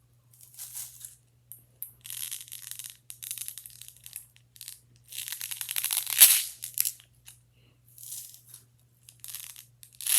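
Plastic pop tubes being stretched and squashed, giving a run of crackly, ratcheting bursts; the loudest comes about six seconds in.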